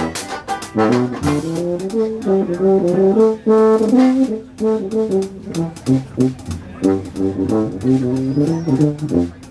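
Live Dixieland jazz band playing: a banjo strumming a steady beat under tuba and brass horn lines.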